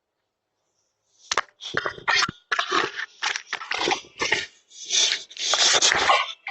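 A dog chewing and mouthing a Ring video doorbell: an irregular run of rough crunching and scraping bursts, starting about a second in.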